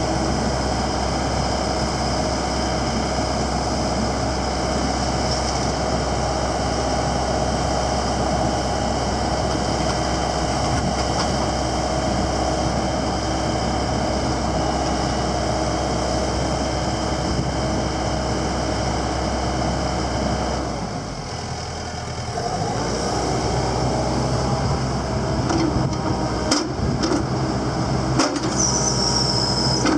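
Komatsu PC78 excavator's diesel engine running steadily with the hydraulics working as the boom and arm move. About 21 seconds in the sound dips briefly, and a few sharp knocks come near the end.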